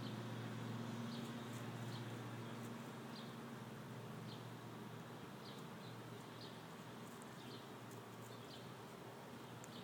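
Faint outdoor ambience of short, high chirps from a small animal, repeating about once a second. Under them runs a low steady hum that fades out about four seconds in.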